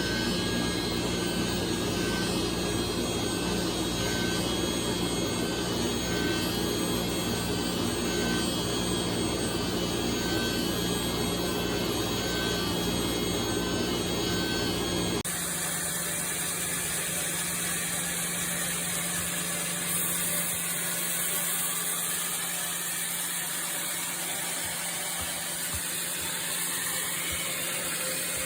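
Sawmill machinery running steadily with a heavy low hum and a short tone repeating about once a second. About halfway it switches abruptly to a different machine sound, a steady hum under a high hiss.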